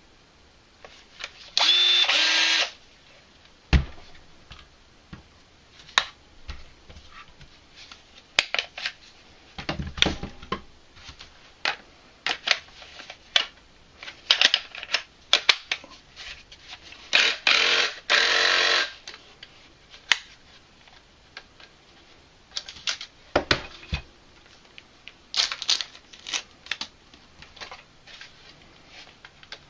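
Cordless power tools and plastic packaging being handled: scattered clicks, knocks and rustles, with two louder bursts of about a second each, one near the start and one a little past the middle.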